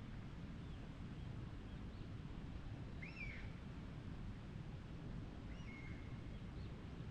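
Wild birds giving short, arched calls now and then, the clearest about three seconds in and another with a drawn-out tail near the end, over a steady low rumble.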